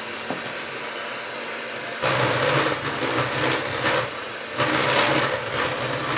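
Hand-held electric mixer beating thick cake batter in a stainless steel bowl. Its whirr jumps louder about two seconds in, dips briefly just after four seconds, then picks up again.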